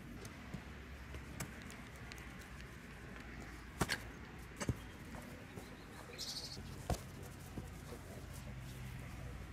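A football being kicked and knocked about on a lawn: a few sharp knocks, in pairs about four seconds in and one more about seven seconds in. A bird chirps briefly just before the last knock over a faint steady background.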